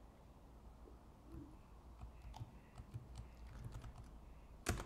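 Faint computer keyboard keystrokes, a scattering of light taps with a sharper key click near the end.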